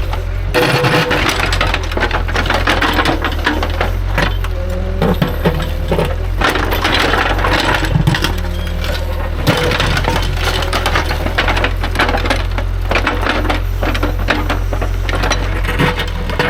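Diesel engine of a compact construction machine running steadily under a dense clatter and scrape of rocks being pushed and shifted by its bucket.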